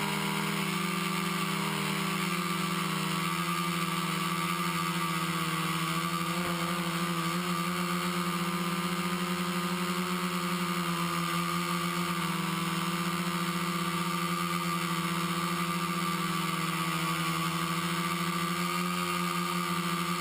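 Quadcopter's four Exceed RC Rocket 2215 920Kv brushless motors spinning 10-inch APC propellers in flight: a steady motor-and-propeller drone, its pitch wavering slightly as the throttle changes.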